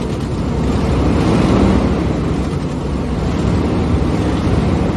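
Ford OBS pickup's engine running steadily, swelling slightly about a second in.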